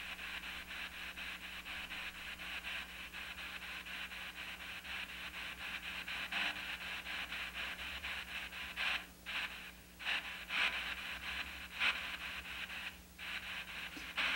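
P-SB7 spirit box sweeping through FM radio frequencies, played through a small Blackstar amplifier: a steady hiss of radio static chopped into a fast, even pulse as it steps from channel to channel, with a few short breaks in the hiss.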